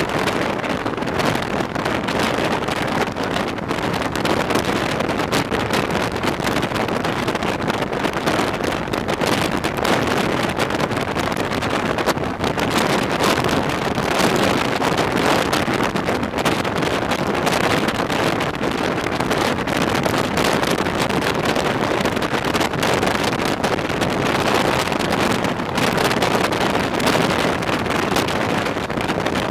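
Steady, loud wind rushing over the microphone through an open window of a moving non-air-conditioned passenger coach, mixed with the coach's running noise on the track.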